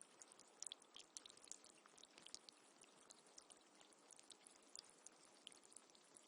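Faint trickling water: a dense scatter of small irregular drips and ticks over a soft hiss.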